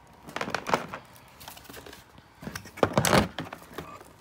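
Handling noise from the Apple MacBook Pro charger and cable being moved about against a cardboard box: rustling, scraping and small knocks in two bursts, about half a second in and a louder one around three seconds in.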